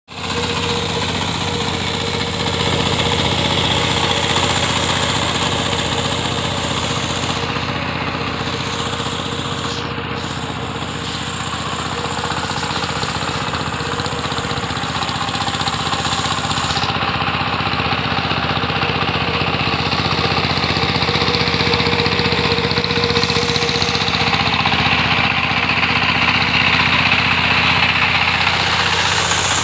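Single-cylinder diesel engine of an ACI two-wheel power tiller running steadily under load while tilling a flooded paddy field.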